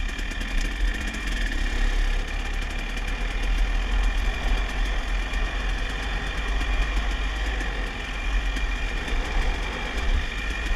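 Dirt bike engine running steadily at low trail speed, with low wind rumble on the microphone.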